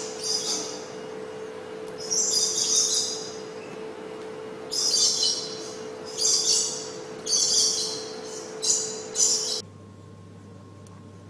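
A series of high-pitched chirping calls in about six short bouts, over a steady low hum. All of it cuts off suddenly near the end, leaving only a faint hum.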